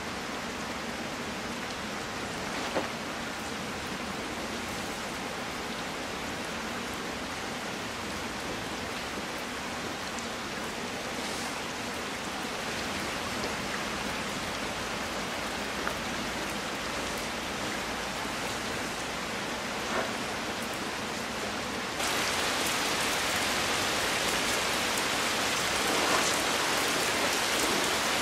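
Heavy rain falling steadily, a dense even hiss with a few sharper drop hits. About three quarters of the way through it abruptly becomes louder.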